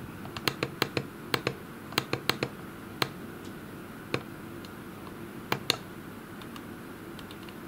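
Irregular sharp clicks of the push buttons on a FG-01 antenna analyzer being pressed over and over to step its centre frequency down, most of them in the first three seconds and a few more later, over a steady low hum.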